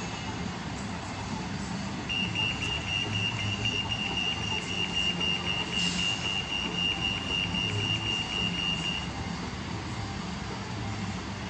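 Pedestrian crossing signal giving a rapid, high-pitched pulsed beep for about seven seconds, starting about two seconds in, the signal that it is safe to cross. Underneath is the low rumble of idling vehicle engines.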